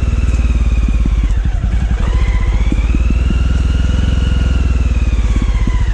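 Motorcycle engine running on the move, with a rapid, regular low thudding from its firing. A higher whine rises about two seconds in and sinks again near the end.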